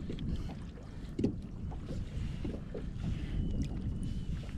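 Steady low rumble of wind and water around a small fishing boat, with a few light knocks from handling on board, the loudest about a second in.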